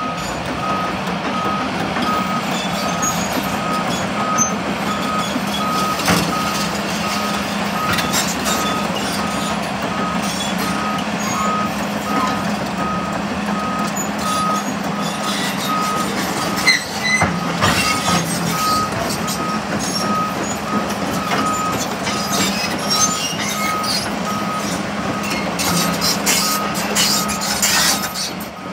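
2013 Sany SY335C hydraulic excavator tracking over gravel: its diesel engine running steadily while its travel alarm beeps about twice a second, with clanks and crunches from the steel tracks, more of them near the end.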